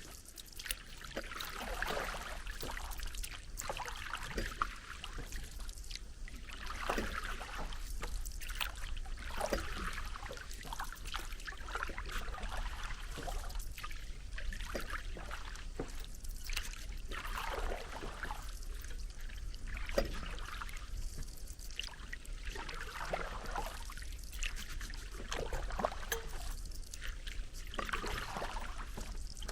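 Water splashing and trickling in irregular swishes every second or two.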